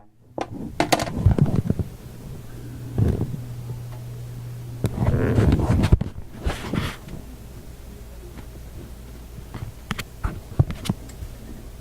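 Handling noises from work on the radio cabinet: scattered clicks and knocks with two longer stretches of rustling, over a steady low hum that starts about two seconds in.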